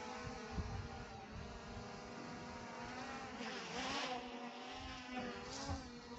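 Quadcopter drone in flight, its propellers giving a steady buzzing whine. About halfway through, the pitch dips and rises again as the motors change speed.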